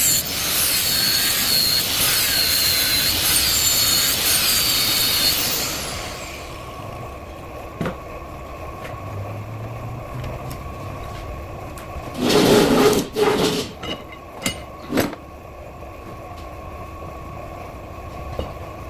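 Workshop tool work on metal: a harsh rasping noise with repeated falling-pitch strokes about once a second for roughly six seconds, then quieter, with scattered knocks and a short loud burst of noise about twelve seconds in.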